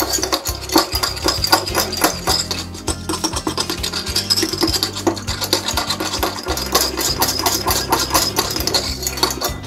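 Metal utensil whisking salad dressing in a small glass bowl: rapid, continuous clicking and scraping of metal against glass as a honey and balsamic vinegar mixture is beaten.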